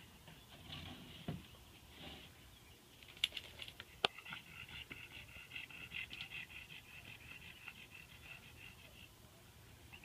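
Wooden beehive parts being handled and pried apart, with two sharp clicks about three and four seconds in. A faint, high chittering follows for several seconds.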